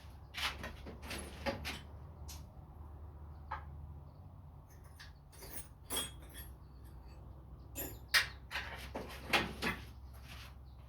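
Irregular clicks, scrapes and small squeaks of metal tools and parts being handled while working on a small-engine crankshaft thread, over a faint steady low hum.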